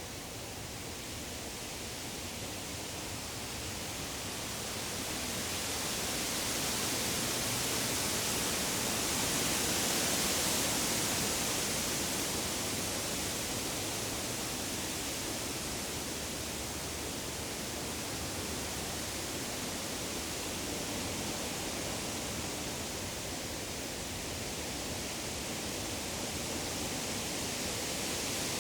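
Wind rustling through the leaves of deciduous trees: a steady, hissing rush that swells to its loudest about ten seconds in, then eases off a little.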